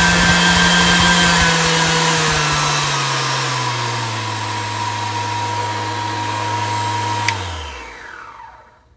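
Milwaukee M18 cordless random orbit palm sander running free in the hand, a steady motor hum and whir. A few seconds in its speed drops to a lower setting, showing off its variable speed, and near the end it is switched off and spins down.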